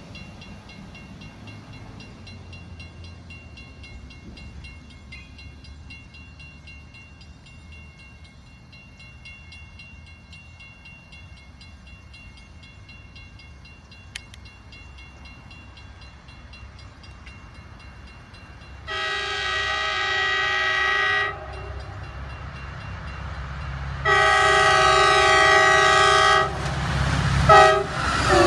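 A CT Rail commuter train approaches as a faint low rumble, then sounds its multi-note air horn: two long blasts and a short one, the pattern a train sounds for a road grade crossing. The rumble of the locomotive and wheels swells as the train reaches the microphone near the end.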